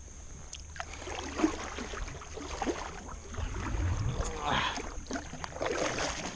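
Kayak paddle strokes: the double-bladed Vibe paddle dipping and pulling through the water with splashing swishes, a stroke every second or so, the loudest about two-thirds of the way through.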